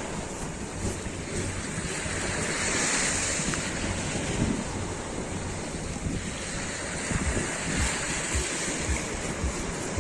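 Sea waves washing on the shore, swelling about two seconds in, with wind buffeting the microphone in uneven low thumps.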